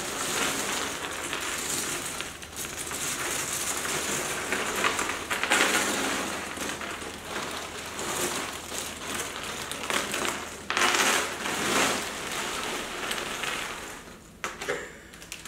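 Thousands of cardboard jigsaw puzzle pieces pouring out of a plastic bag onto a tabletop, mixed with the bag's crinkling. The rattling patter is continuous, with several louder surges as the bag is shaken, and it tails off near the end.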